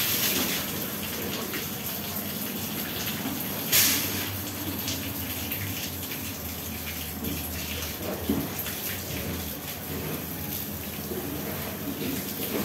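Water splashing over a steady rush of running water, with two louder splashes, one at the very start and one about four seconds in.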